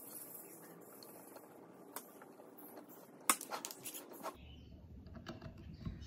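Faint clicks and small knocks of screws and a wooden board being handled on a workbench, a few scattered and a cluster a little past the middle. A low steady hum comes in from about two-thirds of the way through.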